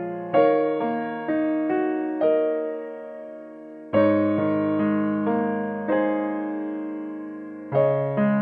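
Background piano music: a slow, gentle tune of struck chords and single notes, each ringing and fading before the next.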